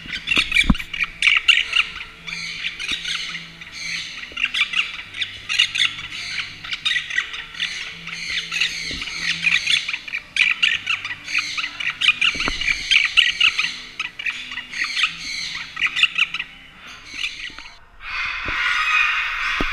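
Pet parrot chattering and squawking in a rapid, unbroken stream of short calls, with a longer, harsher squawk near the end.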